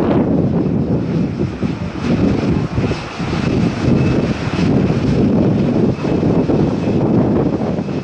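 Boeing 777 jet engines running loud as the airliner rolls along the runway: a dense, steady rumble with a faint high whine around the middle.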